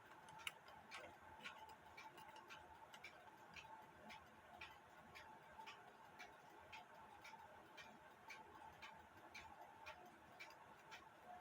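Faint, steady ticking of an antique alarm clock movement, its balance and escapement running.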